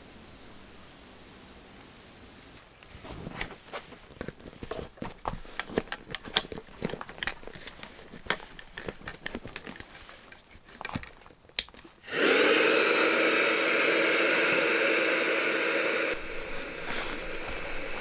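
Several seconds of clicks and rustling from handling gear, then an electric air pump switched on about twelve seconds in. It runs steadily with a high whine, fitted to the valve of an inflatable tent to pull the air out, and drops in level a few seconds later.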